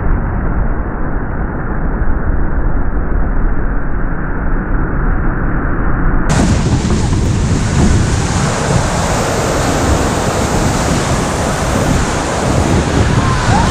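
Roaring whitewater of a big river rapid, heard from a raft running through it, with waves crashing over the boat and wind buffeting the microphone. About halfway through the sound abruptly turns brighter and fuller.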